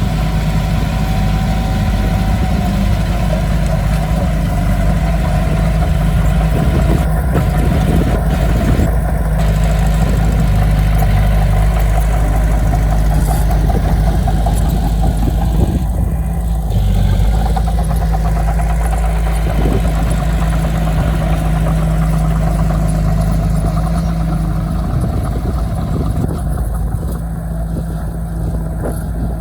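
Diesel engine of heavy earthmoving equipment running steadily, a loud low hum that shifts a little in pitch as it works.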